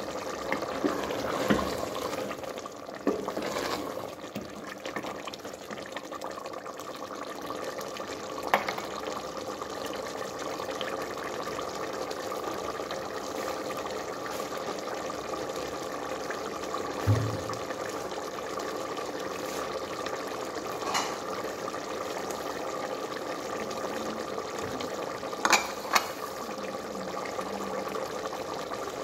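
Black chickpea curry bubbling at a boil in a steel cooking pot on the stove, a steady sound broken by a few sharp clicks.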